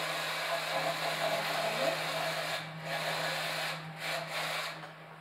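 A long lever-mounted paddle stirring thick, hot loukoumi (Turkish delight) mixture in a large copper cauldron, scraping around the pan in long rasping strokes with brief breaks between them. It stops shortly before the end.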